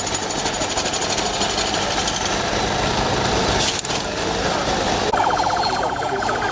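Construction machinery running at a road works with a fast, even rattling pulse, like a jackhammer or compactor. About five seconds in, a higher-pitched pulsing sound joins it.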